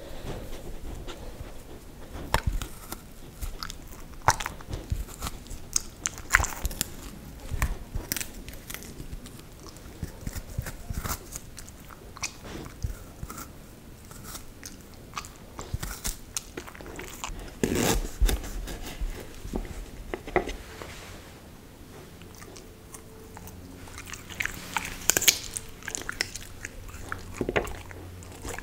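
A Samoyed biting into and chewing raw parsnip, close to the microphone: irregular crisp crunches, the loudest about two-thirds of the way in and again near the end.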